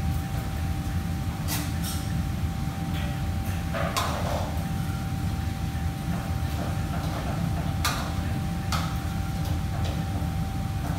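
Steady low rumble of kitchen fans and ventilation with a faint constant hum above it, broken by a few sharp clatters of utensils and dishes on the counters.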